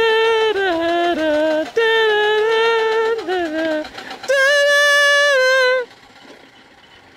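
Miniature steam traction engine's steam whistle blown in three long blasts. The pitch steps down partway through the first two. The third is higher and nearly steady and cuts off suddenly about six seconds in.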